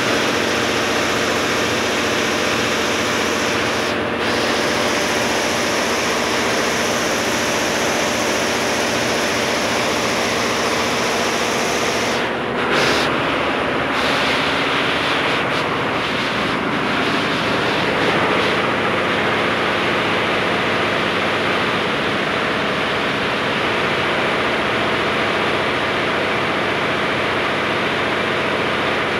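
Multi-head computerized embroidery machine running steadily at about 930 RPM, its row of needle heads stitching: an even, loud mechanical noise with a constant hum under it.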